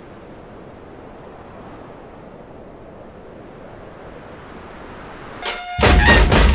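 Steady rushing noise of sea surf. About five and a half seconds in, much louder music with sharp drum strikes and pitched notes cuts in.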